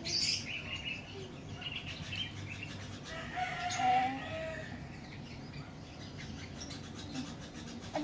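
Baby lovebirds chirping in short, high calls, with a louder, lower bird call about halfway through.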